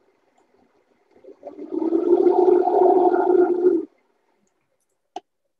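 Vitamix blender running, blending Medjool dates in water: faint at first, then loud and steady in pitch from about a second and a half in, cutting off sharply after about two seconds. A short click follows.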